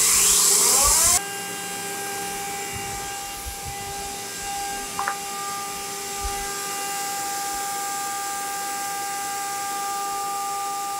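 High-speed spindle on a 3-axis CNC drilling machine spinning up: a loud rush with a rising whine for about the first second, then a steady high whine at running speed.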